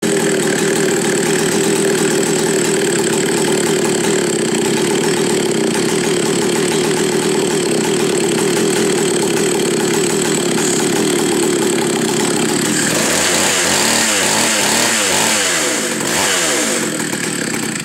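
McCulloch Super Pro 125C chainsaw's 125 cc two-stroke engine running steadily, then revved up and down several times in its last few seconds before shutting off.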